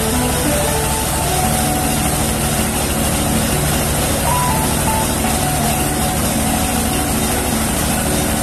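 Rice milling machine running at a steady, loud, unbroken pitch, with a constant low hum under a dense rush of noise.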